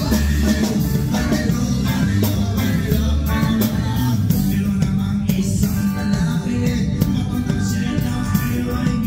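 Live band playing a reggae song, with the drum kit heard up close over the rest of the band and a singer's voice.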